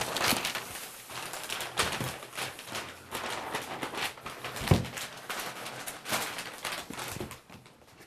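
Brown wrapping paper crackling and rustling as a large book box is pulled out of it, with one heavy thump about halfway through.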